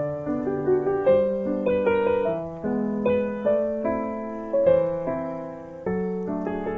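Soft background piano music, a slow run of single notes and chords, each struck and fading.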